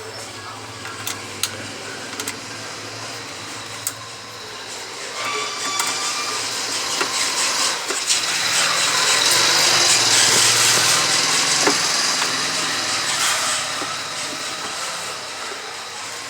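A motor-like running sound that swells over several seconds and fades again, with a few light clicks in the first few seconds.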